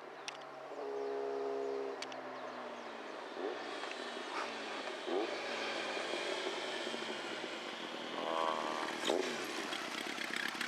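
Honda CB1000SF's inline-four engine breathing through a loud, free-flowing aftermarket silencer: it holds a steady note at first, then is blipped several times, the pitch sweeping up quickly with each twist of the throttle.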